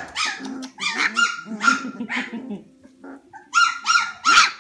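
Old English Sheepdog puppies, nearly four weeks old, yapping in play: short high-pitched yaps in quick succession, a brief lull about three seconds in, then a rapid flurry of yaps near the end.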